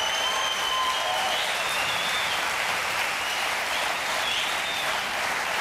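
Studio audience applauding steadily, with a few high whistles over the clapping.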